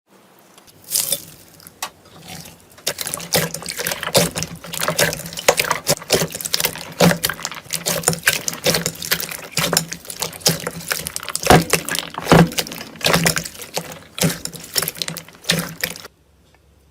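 Slime being squished and worked by hand, giving a dense run of wet clicks and squelches that stops abruptly near the end.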